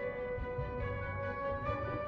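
Soft orchestral background music with long held notes.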